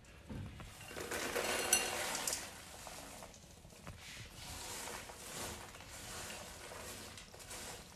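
Popcorn tipped into a pan of hot caramel sauce and stirred with a silicone spatula: a noisy rustle, loudest from about one to two seconds in with a sharp click near its peak, then softer, uneven stirring.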